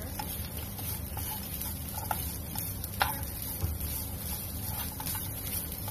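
Plastic spatula scraping and tapping against a nonstick pan while stirring grated coconut and cashews, in irregular light scrapes and ticks with the sharpest tap about three seconds in, over a steady low hum.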